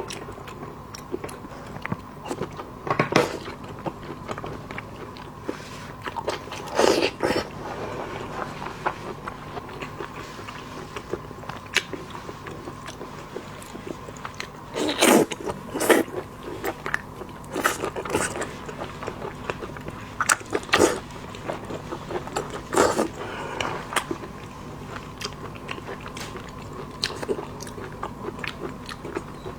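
Close-miked eating of seafood: wet chewing and small clicking mouth sounds, with louder bites every few seconds. A faint steady hum runs underneath.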